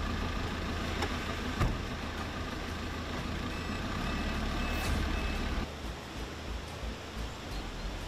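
Avia A31 fire truck's diesel engine idling, with the cab door slamming shut about a second and a half in. After about five and a half seconds the engine sound gives way to the steady rush of a flooded river.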